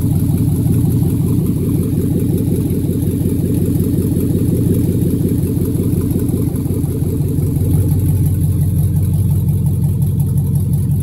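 2007 Chevy Avalanche 1500's V8 engine idling steadily.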